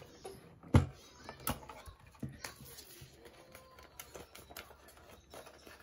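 Plastic lid of a Munbyn thermal label printer snapping open with one sharp click about a second in, followed by scattered lighter clicks and handling noises as the sticker label roll is lifted and its label stock is fed into the printer.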